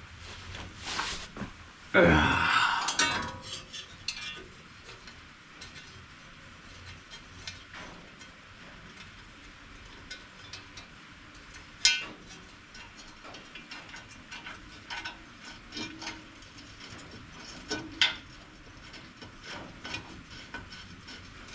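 Hand work on baler hardware: scattered metal clicks and clinks of bolts and tools being handled and threaded in. A louder scraping clatter comes about two seconds in, and sharp single clicks come later.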